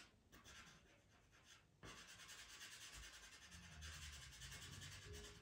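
Faint scratchy stroking of a pastel pencil over textured Pastelmat paper, picking up about two seconds in and going on steadily.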